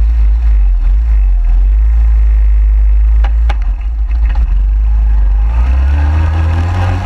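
Suzuki QuadSport 250 ATV engine running close to the frame-mounted microphone, a heavy low rumble, with two sharp clicks near the middle. About six seconds in the engine note rises as the quad pulls away.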